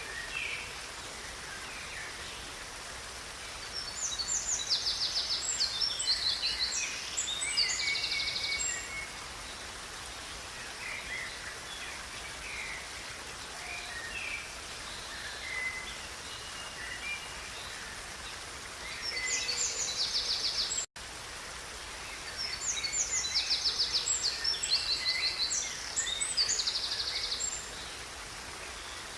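Songbirds singing over the steady rush of a river: loud, rapid trilling song phrases come in bouts a few seconds in, around two-thirds through and again after that, with scattered chirps between. The sound drops out for an instant about two-thirds through.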